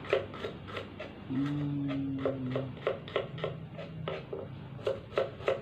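Quick, even knocks of a knife slicing shallots on a cutting board, about three to four a second. A steady low hum comes in for a couple of seconds partway through.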